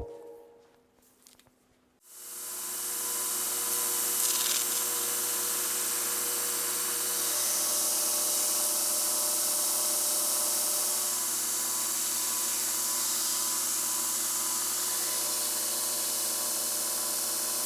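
A small electric motor starts about two seconds in and runs steadily, a constant hum with a strong high hiss over it.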